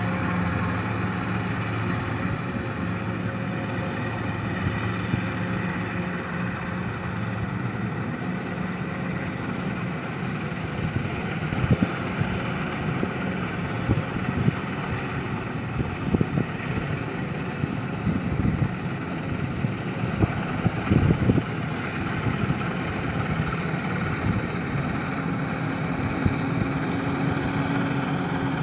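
An engine running steadily, with scattered knocks and clatters in the middle stretch.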